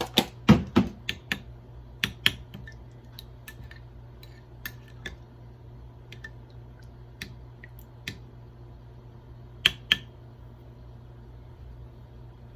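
A spoon clinking and tapping against a small bowl while sugar is added and stirred into dipping sauce: a quick run of clinks in the first couple of seconds, then scattered taps, with two sharp clinks close together near the end.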